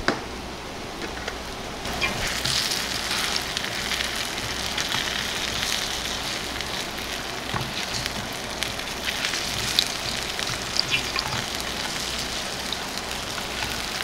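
Bammy (cassava flatbread) frying in shallow oil in a non-stick pan: a steady sizzle with scattered small pops. There is a sharp click right at the start.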